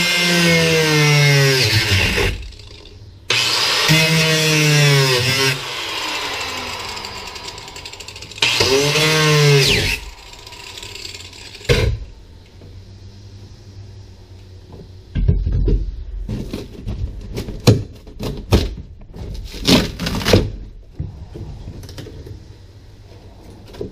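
Ryobi angle grinder cutting through a fiberglassed-in kick plate in three bursts in the first ten seconds, its motor pitch sagging and recovering within each burst. In the second half come scattered knocks and thumps as the cut-out panel is worked loose.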